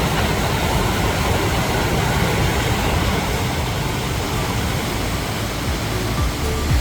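Steady rushing roar of a waterfall, water pouring over the falls into the pool below.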